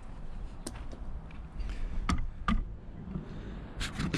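Handling noise from hands working on wires and parts: a few light clicks and taps, with two sharper knocks half a second apart about two seconds in, over a low background rumble.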